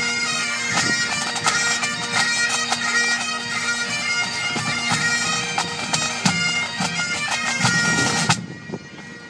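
Pipe band of Highland bagpipes and drums playing, the pipes' steady drones under the chanter melody with regular snare drum strokes. The band stops together sharply about eight seconds in.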